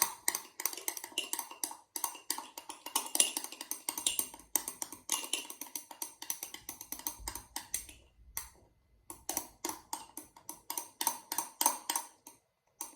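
Utensil stirring thick slime in a measuring cup: a quick, uneven run of clicks and taps against the cup, stopping briefly about eight seconds in and again near the end.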